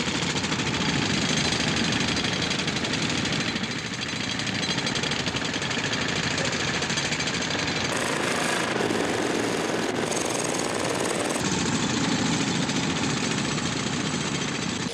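Pneumatic rock drill hammering steadily into rock, a fast, continuous rattle of blows.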